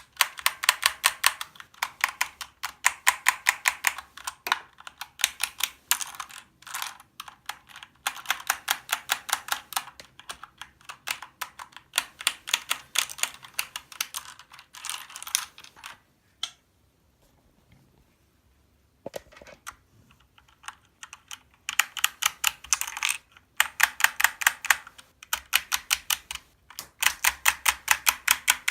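Keys of a Corsair K70 Lux RGB mechanical keyboard being pressed rapidly in bursts, a fast even clatter of clicks at about five a second, with a brief pause about two-thirds of the way through.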